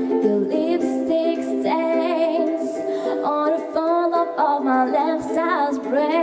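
Ukulele strumming chords under a singing voice that carries the melody, with a wavering pitch.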